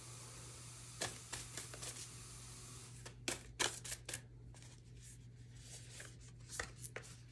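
Faint, scattered flicks and clicks of tarot/oracle cards being handled and shuffled while the next card is drawn, over a low steady hum.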